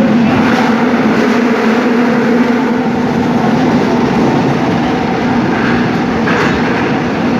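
Seoul Subway Line 5 train running at speed, a steady rumble of wheels on rail with a constant low hum over it. A brief clack comes about six seconds in.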